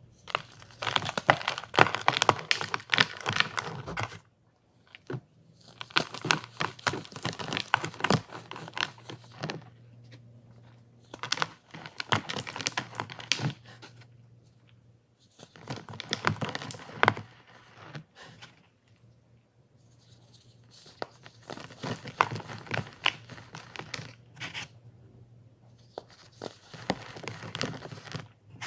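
Pressed baking soda blocks being crushed and crumbled by hand: six bouts of crunchy crackling and crumbling, with short pauses between them.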